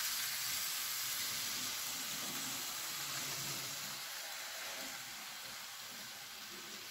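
N scale model trains running on the track layout: a steady hissing whir of small wheels on rail and motors, with a faint low rumble, easing off somewhat about four seconds in as the nearby train moves away.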